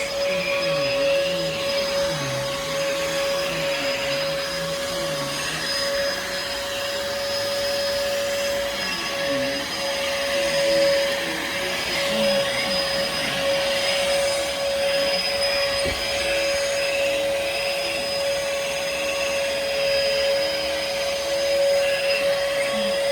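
Bissell PowerForce Helix vacuum cleaner running steadily: a constant motor whine that holds its pitch, over a lower sound that wavers up and down.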